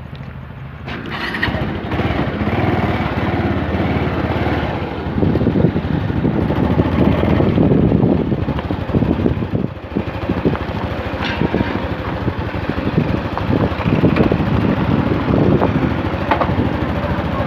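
Small motorbike engine running while being ridden, getting louder about a second in as it pulls away, with rough wind noise on the microphone.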